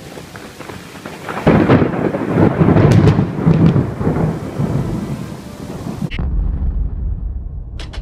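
Thunder in a tropical storm over steady rain: a loud clap about a second and a half in that rolls on and fades over several seconds. About six seconds in, the rain hiss cuts off suddenly, leaving only a low rumble.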